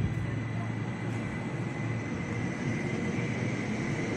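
Electric S-Bahn commuter train at the platform: a steady low hum with a thin high whine above it. About three seconds in, a fainter tone begins to rise as the train starts to move off.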